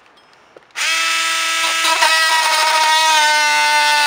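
Ryobi cordless power tool switching on about a second in and running with a steady whine while cutting through nails in the window sill framing.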